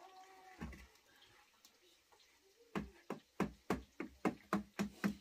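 Metal ladle knocking against a steel basin: one ringing clang of the bowl about half a second in, then a fast, even run of sharp knocks, about three or four a second, from about halfway through.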